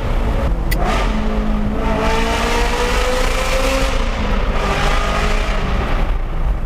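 Ferrari F355's 3.5-litre V8, straight-piped with the exhaust valves open, revving hard under acceleration through the gears, echoing in a tunnel. The pitch climbs, falls at an upshift about half a second in and again about four seconds in, then climbs again.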